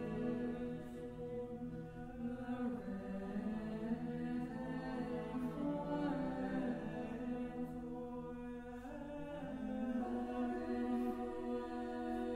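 Unaccompanied choir singing slow, held chords that change every few seconds.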